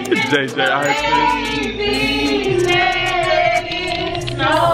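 Several voices singing together over a backing music track, in long held and sliding notes.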